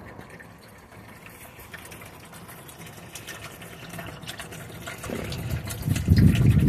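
A garden hose pours a stream of water into a plastic supply tank, splashing into the water below. A louder, low rumble builds about five seconds in.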